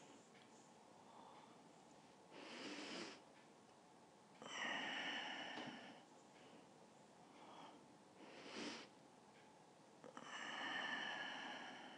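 A woman breathing slowly and deeply through the nose while holding a yoga pose: two cycles, each a short airy inhale followed by a longer, louder exhale with a faint whistling tone.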